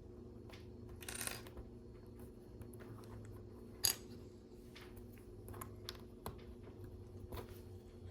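LEGO plastic pieces being handled and fitted: scattered light clicks and a brief rustle about a second in, with one sharper click near four seconds in, over a faint steady hum.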